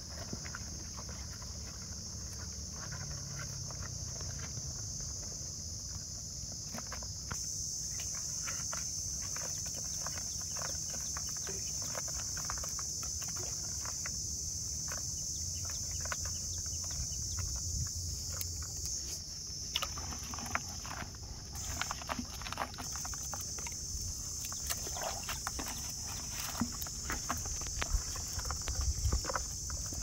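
Gloved hands sorting the catch in a plastic bucket: scattered clicks, knocks and rustles, busiest in the second half, over a steady high-pitched hiss.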